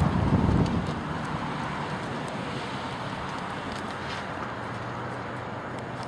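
A car going by on the street, its noise fading away about a second in, then a steady low rumble of distant traffic.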